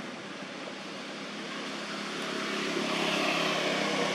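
Steady engine hum of a motor vehicle, growing louder from about two seconds in.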